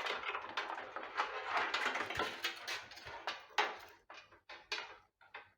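Front-panel connector wires of a PC case being handled: rustling with many light clicks and taps, then a few separate ticks near the end.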